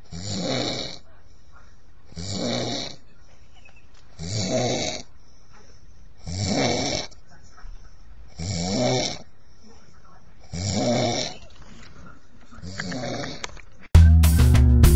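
A man snoring in his sleep, one snore about every two seconds, seven in all. Loud music with drums and guitar cuts in abruptly near the end.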